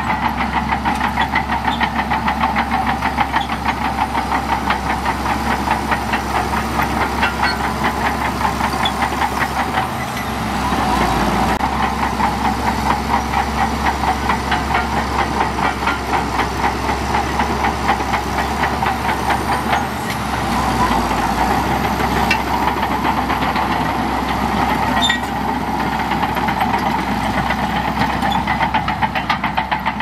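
Diesel engine of a Shantui DH17C2 bulldozer running while it works, a steady fast throb, with the engine note changing briefly about a third and two-thirds of the way through.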